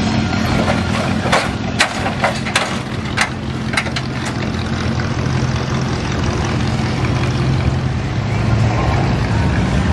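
Car engines running at low speed as cars roll slowly past, a steady low hum. A few sharp clicks come about one to four seconds in.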